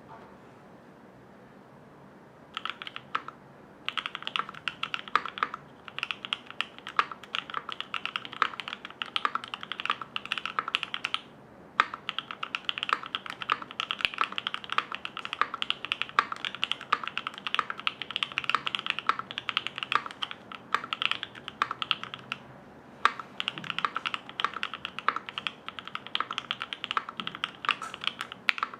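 Cornetto60 60% mechanical keyboard with lubed and filmed Alpaca linear switches on an FR4 plate, typed on fast: many keystrokes a second, starting about two and a half seconds in and broken by a few short pauses.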